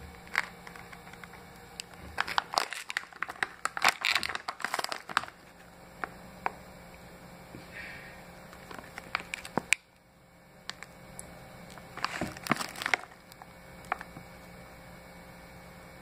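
Plastic bag of frozen green beans crinkling and crackling as it is handled and turned. The crackles come in two main flurries, from about two seconds in and again about twelve seconds in, with scattered single crackles between.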